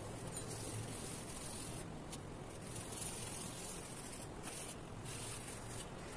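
Steady background hiss, strongest in the high range and dipping now and then, with one sharp click about half a second in.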